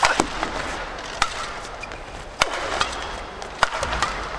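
Badminton rally: rackets striking the shuttlecock with sharp cracks about every second, traded back and forth, with short shoe squeaks on the court between hits.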